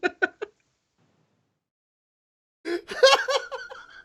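People laughing: a short burst of rapid laughs at the start, then silence, then a second burst of laughter about two and a half seconds in.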